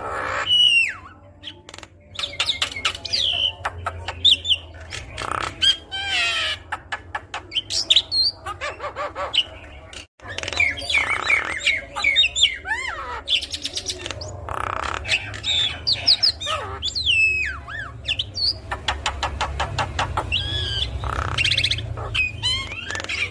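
Javan myna singing a long, varied song: whistled notes that glide up and down, harsh squawks and fast buzzy rattles, one after another. A low hum runs underneath, and the song breaks off for a moment about ten seconds in.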